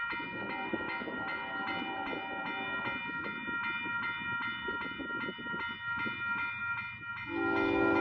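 Railroad crossing warning bell ringing in evenly repeated strikes. About seven seconds in, the horn of the approaching train starts sounding and holds steady.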